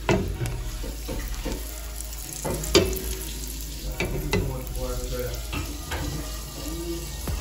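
Food frying in a pot of hot oil, sizzling steadily, with a utensil knocking against the pot several times as it is stirred; the loudest knock comes about three seconds in.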